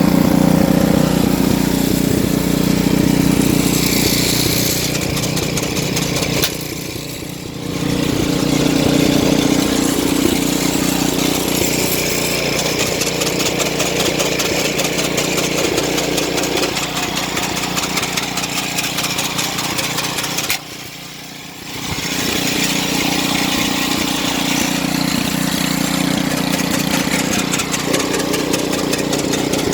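Snow blower's small engine running steadily, making a noise its owner finds abnormal; the sound drops off briefly twice, about a quarter of the way in and again about two thirds in.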